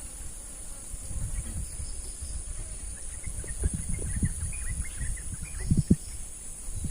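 Steady high-pitched insect drone with a run of short bird chirps in the middle, over low rumbling and a few dull knocks, the loudest about six seconds in.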